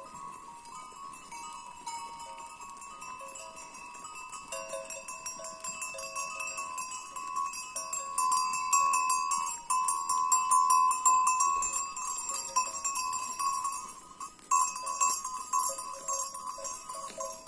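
Bells on a flock of sheep jingling and clanking continuously as the animals walk. The sound grows louder about halfway through as the sheep pass close.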